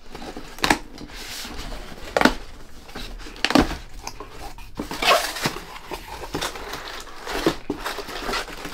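Cardboard shipping box being opened by hand: flaps pulled back and hands rummaging through brown paper packing inside, giving irregular rustling with a handful of sharp crackles.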